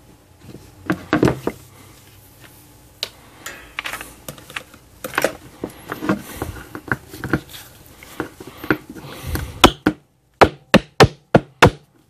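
Plastic Anderson Powerpole connector housings being struck with a metal wire-stripping tool to force a too-tight pair to lock together: scattered knocks and clicks, then a quick run of six sharp taps, about four a second, near the end.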